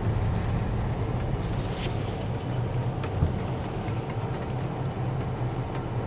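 Steady low rumble of engine and road noise inside a moving car.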